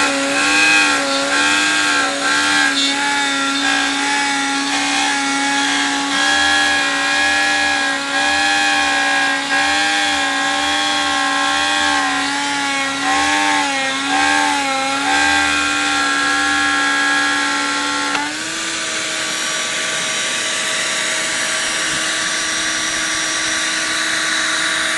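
CNC router spindle cutting Baltic birch plywood, running with a steady hum whose pitch dips and wavers as the bit loads up in the wood. About 18 seconds in the pitch steps up slightly and the sound evens out into a steady whine.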